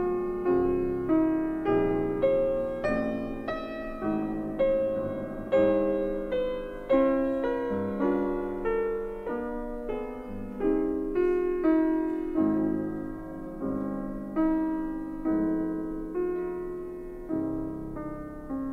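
Background piano music: a slow melody of single struck notes and chords, each ringing out and fading before the next.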